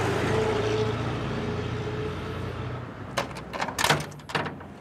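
A car engine running and fading away over about three seconds, then a quick run of sharp metal clanks and rattles from a sheet-steel gate with a chain-link panel as it is moved.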